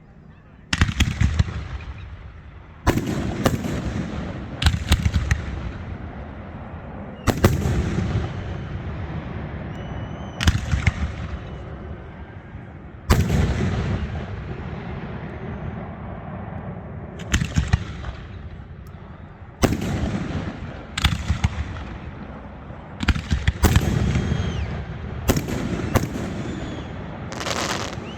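Aerial fireworks exploding: over a dozen sharp bangs at irregular intervals, several in quick pairs or clusters, each followed by a low rolling echo.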